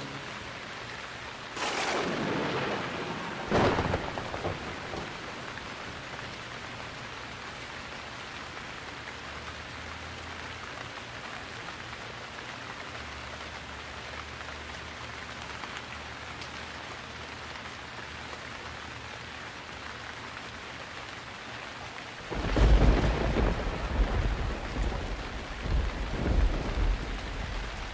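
Heavy rain falling steadily, with two sharp claps of thunder a few seconds in and a long, loud rolling rumble of thunder near the end.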